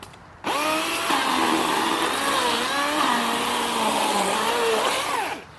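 Cordless electric chainsaw (DeWalt) starting up with a rising whine, running and cutting, its motor pitch shifting up and down under load, then winding down with a falling whine as the trigger is released near the end.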